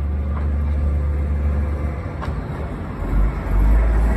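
Ikawa Line diesel locomotive running in slowly at low speed, its engine a steady low rumble that grows louder and deeper about three seconds in as it comes alongside, with a couple of faint clicks from the running gear.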